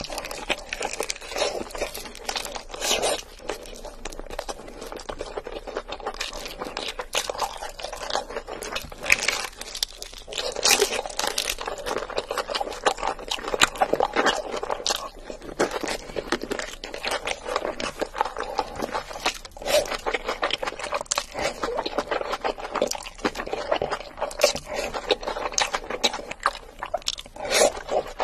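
Close-miked eating: repeated crunching bites into crispy spicy fried chicken, with wet chewing between the crackles.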